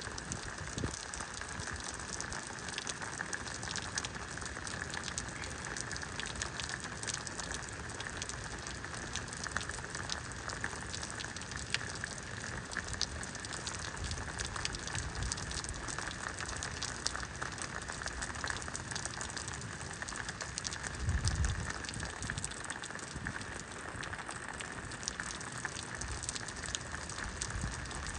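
Steady heavy rain falling, with a dense patter of close drop hits. A brief low rumble comes about three quarters of the way through.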